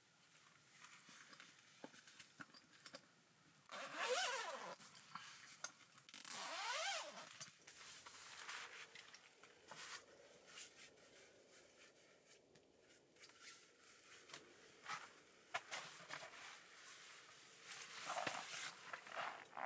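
A zipper pulled in two quick strokes a few seconds apart, then scattered light rustles and clicks, with another short zipping or rustling burst near the end.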